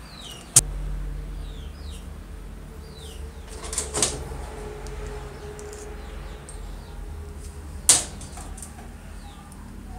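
Hand tools knocking against a concrete floor while a small stove part is taken apart: one sharp knock about half a second in, a softer clatter around four seconds, and another sharp knock as a steel wrench is laid down near the end.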